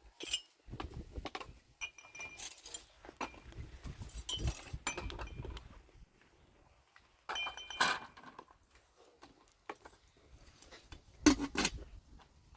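Irregular clinking and rattling of small metal or glass objects being handled, with soft knocks in between and short ringing tones on some clinks.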